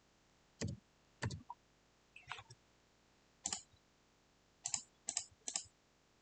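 Computer mouse clicking: about seven short, separate clicks at irregular intervals, the first two a little duller than the rest.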